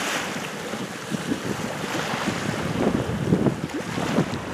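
Wind gusting against the microphone over the wash of a choppy sea, the buffeting heavier in the second half.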